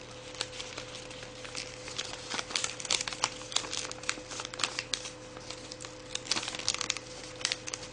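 A sheet of printer paper being folded and creased by hand: irregular crinkling and rustling crackles, with a faint steady hum beneath.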